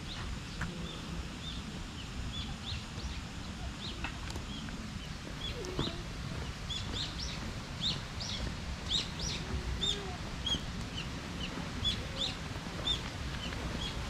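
Small birds chirping: many short, high calls repeated throughout, busiest in the middle, which a garden attendant says are real birds, not a recording. A steady low rumble runs beneath.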